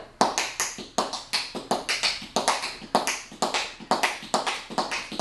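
Tap shoes striking a concrete floor in a tap-dance paradiddle (heel, toe, toe, heel, heel, toe, toe, heel): a quick, steady run of sharp taps, about four or five a second.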